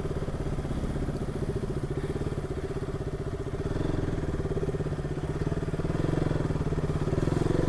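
Single-cylinder motorcycle engine running at low revs with an even firing beat, picking up slightly about halfway through.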